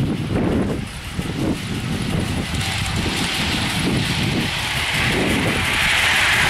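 Four-cylinder 5-inch gauge live steam model of a Coronation Class locomotive running, its steam hiss swelling from about halfway through and loudest at the end. Low gusty wind rumble on the microphone runs underneath.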